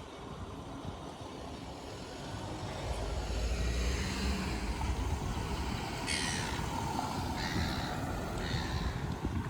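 A motor vehicle's engine rumble swells from about three seconds in, with short hissing bursts around six seconds.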